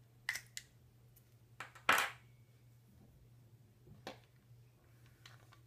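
Sharp clicks and metal clinks from a key ring, a fob's mechanical key and a screwdriver handled on a hard tabletop. The loudest is a clatter about two seconds in that rings briefly, with lighter clicks before and after.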